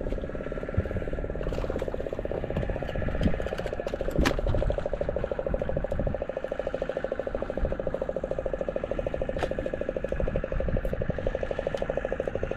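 A boat engine running steadily, a fast even pulse with a hum, and a few sharp knocks from handling the line and catch in the wooden boat, the loudest about four seconds in.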